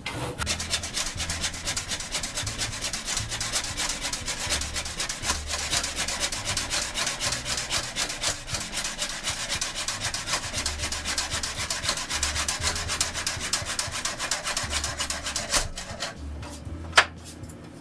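Hand saw cutting across a wooden board with steady back-and-forth strokes. The sawing stops about sixteen seconds in with a knock, followed by a single sharp click.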